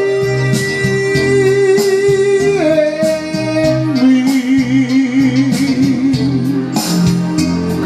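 A man's voice sustains the closing notes of a bolero: one long held note, a step down, then a second long note with a wide, even vibrato about four seconds in. Guitar accompaniment runs underneath.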